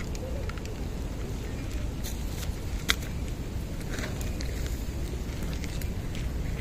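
Cats crunching dry kibble from a food dish, a string of irregular small crackling clicks with one sharper click about three seconds in, over a steady low rumble.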